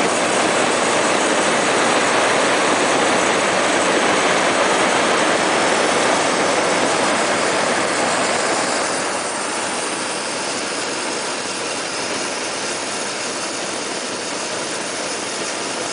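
Hot air balloon's propane burner firing: a loud, steady rush of noise that eases a little about nine seconds in.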